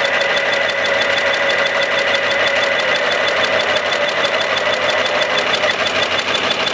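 Toy mini front-loading washing machine running its spin cycle: a steady, fast mechanical whirr with a high whine.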